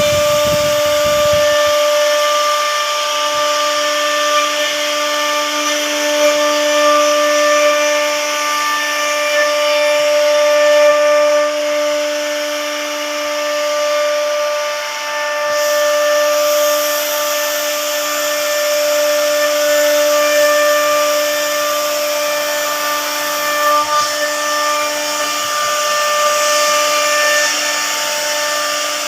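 CNC router spindle running at speed and cutting a door panel: a steady whine over continuous cutting noise.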